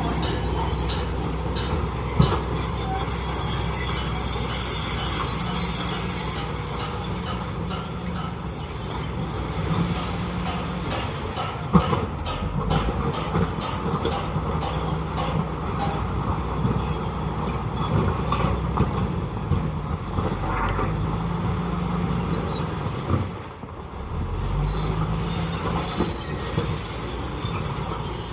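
Bulldozer working: its diesel engine runs under load while the steel tracks clank and squeal. The engine note rises and falls and drops briefly near the end.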